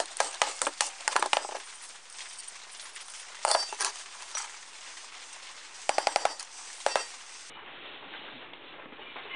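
Rapid metallic clicking as a screwdriver backs a screw out of a rusty steel camp stove, stopping about a second and a half in. This is followed by a few scattered clinks and knocks of rusty steel stove parts being handled on the workbench.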